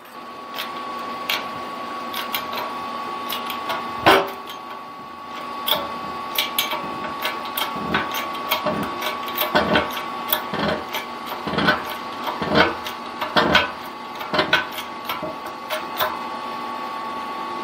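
Hand-pumped hydraulic bottle-jack shop press driving a tapered roller bearing's outer race into a mini lathe headstock: a run of irregular clicks and knocks from the pump handle and press, with one sharper knock about four seconds in, over a faint steady tone.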